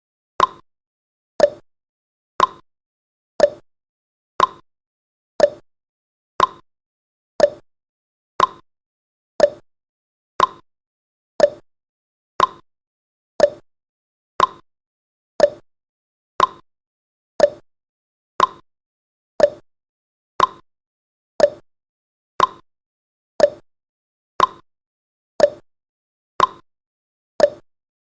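Countdown timer's tick sound effect: one short, sharp tick every second, evenly spaced, about twenty-eight in all.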